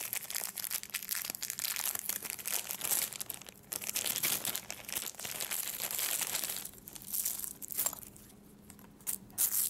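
Thin clear plastic bag crinkling and rustling as hands open it and take out a foam microphone windscreen, with a short lull about eight seconds in.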